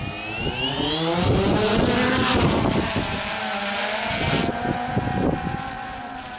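DJI Phantom quadcopter's motors and propellers whining as they spin up and lift it off, the pitch rising over the first second, then a steady buzz that grows fainter over the last couple of seconds as the drone climbs away.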